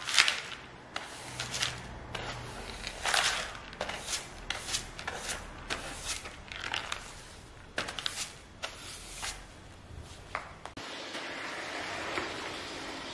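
Hand brush sweeping grit and debris across a parquet floor into a plastic dustpan, in brisk, irregular strokes. Near the end this gives way to the steady noise of a corded floor steam mop being pushed over the floor.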